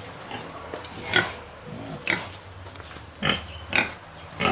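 Pigs calling: a few short, sharp grunts and squeals, with lower grunting in between.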